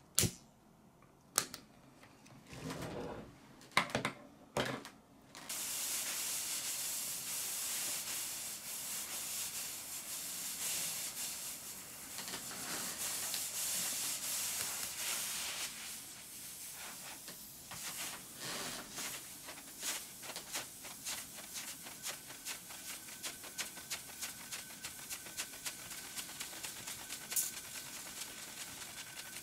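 A lighter clicks a few times and the alcohol burner catches in the first few seconds. Then the aeolipile (Hero's steam engine) hisses steadily as steam jets out of its brass sphere. About halfway through the hiss breaks into a rapid, irregular crackling sputter, with a faint steady whistle under it later on.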